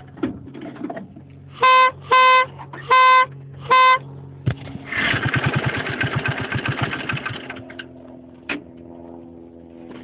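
A vehicle horn honks four times in short beeps, then the go-kart's small engine sputters with quick uneven firing for about three seconds before settling into a quieter steady hum.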